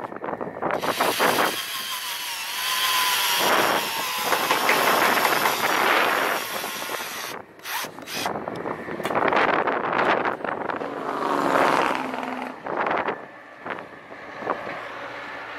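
Cordless drill driving screws through steel roof ridge capping in several separate runs, with short pauses between them.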